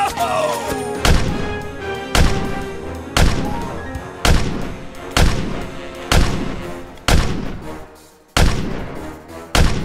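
Dubbed gunfire or cannon-shot sound effects: nine sharp blasts at about one a second, each dying away, over background music.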